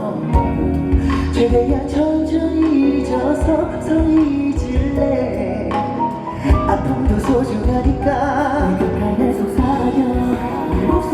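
Live pop ballad: band accompaniment playing steadily under a singer's voice carrying a melodic line.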